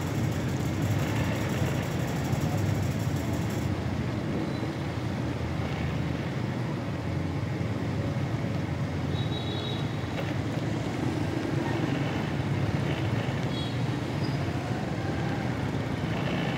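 Steady engine and road noise from riding a motorcycle slowly through city traffic on a wet, potholed street, with other motorcycles and cars running close by.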